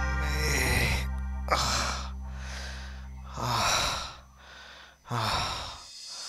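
A man gasping for breath, about five heavy, ragged breaths. A low music drone underneath fades out about four seconds in.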